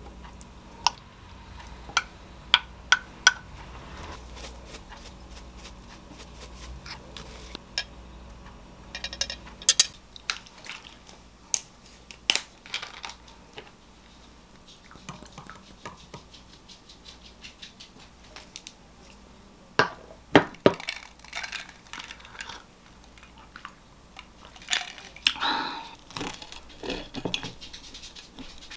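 Spoon and cutlery on a ceramic plate: scattered sharp clinks and taps, with a denser stretch of clinking and scraping near the end as a knife and fork cut into toast on the plate.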